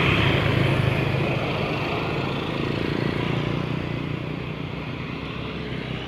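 Large bus diesel engine running as the coach moves along in slow traffic, its hum slowly fading as it draws away.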